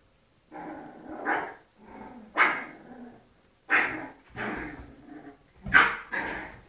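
Two small dogs barking at each other in a fight: a run of short, loud barks in quick, irregular bursts.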